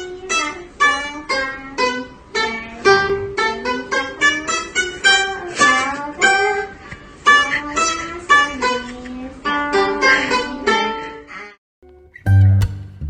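Background music: a quick plucked-string melody that breaks off about a second and a half before the end, then a different piece with a heavy bass comes in.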